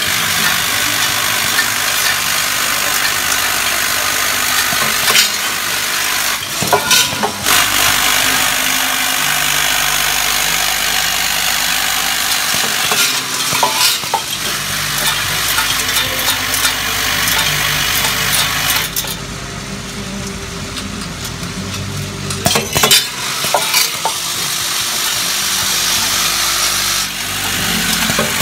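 Vibratory bowl feeder of an automatic screw counting and packing machine running, a mass of screws and bolts rattling against its steel bowl and chutes in a dense, steady metallic rattle. A few louder clacks stand out, and the rattle eases for a few seconds in the second half.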